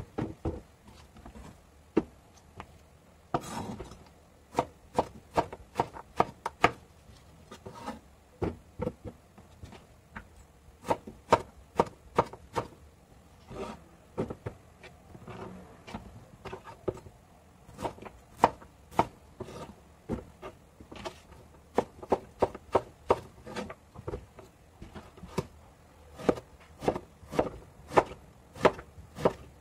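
Cleaver chopping vegetables on a wooden cutting board: a long, irregular series of sharp knocks of the blade on the wood, often in quick runs, with short pauses between them.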